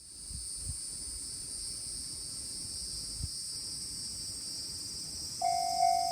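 Steady, high chirring of an insect chorus. About five seconds in, a level-crossing warning bell starts ringing, a repeated ding about twice a second, which signals an approaching train.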